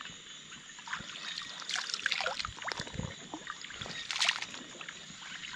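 Someone wading through shallow muddy water in a flooded rice paddy: water sloshing and splashing irregularly with each step.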